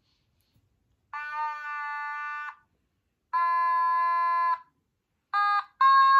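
Otamatone playing four held, buzzy electronic notes, starting about a second in. The first two notes are long, the third is short, and the fourth is still sounding at the end.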